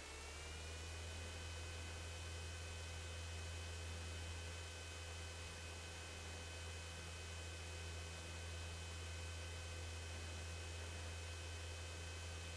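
Cessna 150's Continental O-200 engine at full power on the takeoff roll, heard faintly as a steady low hum with a few thin whining tones. The tones rise slightly in pitch in the first second, then hold steady.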